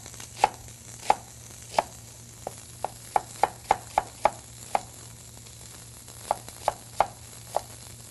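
Chef's knife dicing a red onion on a wooden cutting board: a series of sharp knocks of the blade against the board, in uneven runs of quick strokes, with a pause of about a second a little past the middle.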